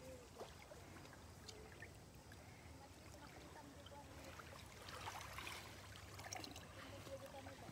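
Faint lapping of small waves over the stones and pebbles at the water's edge, a little stronger about five seconds in.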